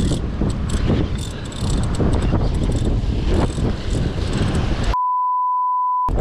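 Wind and surf rushing on the microphone, with the clicking whir of a large saltwater spinning reel being cranked against a fighting fish. About five seconds in, all the sound cuts out for about a second under a steady single-pitch censor bleep.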